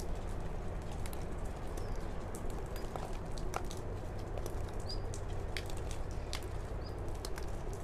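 Steady low background rumble with faint, brief bird chirps now and then and scattered light ticks.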